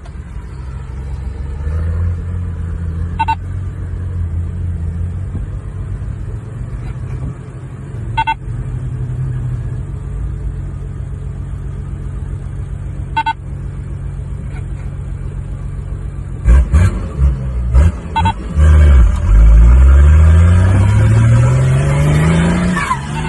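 Nissan Y60 Patrol's turbocharged engine running steadily with short high chirps about every five seconds, then revved hard in several quick blips and pulling up through the revs under load.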